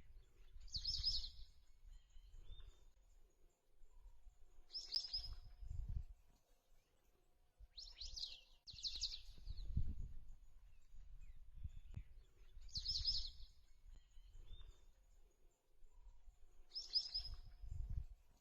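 A bird repeating a short, high, multi-note call about every four seconds, twice in quick succession midway, over intermittent low rumbling noise.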